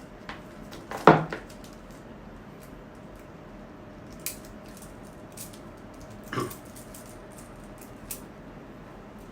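Blind-box packaging and doll being handled: scattered light clicks and rustles, with a sharper, louder knock or crinkle about a second in and another about six seconds in.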